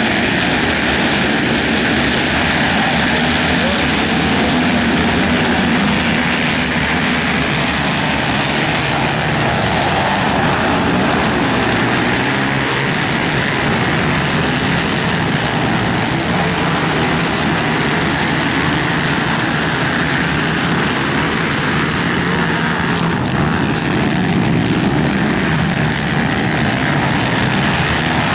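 A pack of racing ATVs (quads) running hard at high revs together, many engines blending into one loud, steady wall of engine noise as the field races off the start and around the dirt track.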